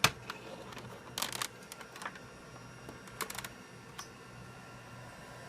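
Sharp clicks and knocks, the loudest at the very start, as a full-height Seagate MFM hard drive is handled and slid into a computer's drive bay. A low steady hum runs underneath.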